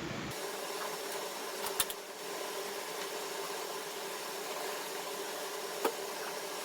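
Steady hiss-like background noise, as from a fan, with a few light taps about two seconds in and one near the end: spoons of spice being tipped into a bowl of chicken mince.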